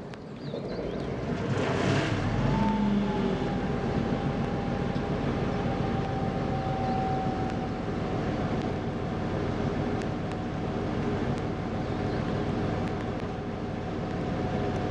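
Soviet M62 diesel locomotive's V12 two-stroke diesel engine working hard as it hauls a freight train away. The engine sound swells over the first couple of seconds and then holds loud and steady, with a steady whine running over it.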